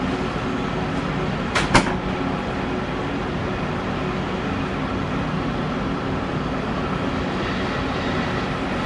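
Cat 330DL excavator's diesel engine running steadily under load as it swings and dumps a bucket of dirt into a dump truck, with two sharp knocks close together about one and a half seconds in.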